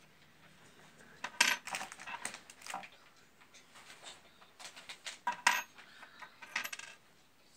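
Small metallic clicks and clinks of a screwdriver being handled against the appliance's metal casing and terminal block, in three short clusters.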